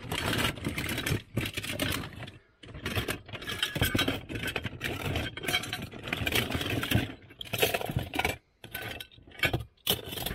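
Hands rummaging through a cardboard box of old toy cars and trucks, the toys clattering and clinking against each other and scraping on the cardboard, in irregular spells with two short breaks.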